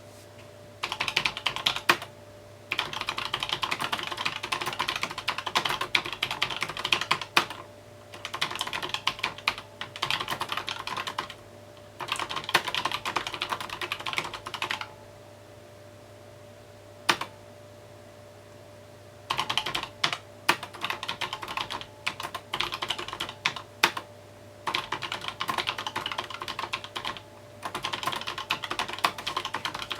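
Typing on a mechanical keyboard in bursts of a few seconds, separated by short pauses. Near the middle there is a longer pause broken by a single keystroke.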